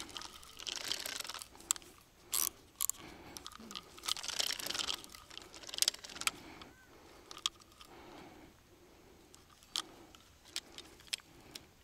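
Irregular clicks, rattles and rustling from a fishing reel being handled. Its spool slips and won't hold, so the reel is broken.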